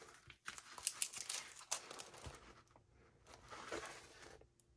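Plastic packaging crinkling as it is handled, a quick run of crackles in the first two seconds and a few fainter ones later.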